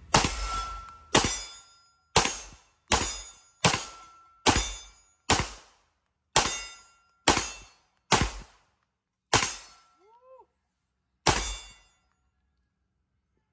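A Beretta 92FS 9 mm pistol firing a string of about twelve shots, roughly one a second at first and then slower, with the last two spaced further apart.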